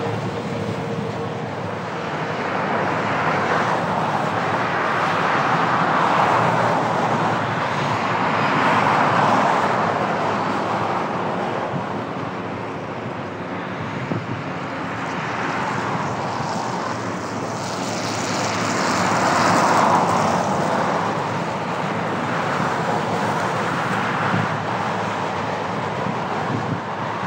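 Road traffic passing over a steady outdoor rumble, with several slow swells as vehicles go by.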